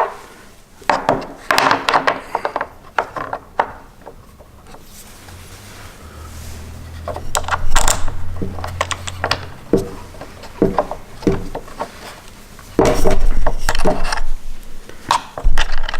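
Hand tools and small metal hardware clicking, rubbing and clattering as parts are unscrewed and handled, with a low hum for a few seconds in the middle and a run of louder knocks about 13 seconds in.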